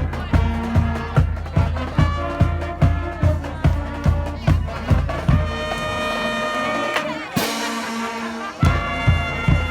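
High school marching band playing: brass chords over a steady drum beat, about two to three beats a second. The drums drop out for a held brass chord, a crash comes about seven seconds in, and the beat picks up again near the end.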